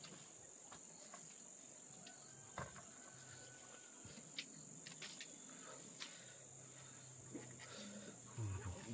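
Insects trilling steadily at a high pitch, with scattered small clicks and knocks and a faint low hum that swells near the end.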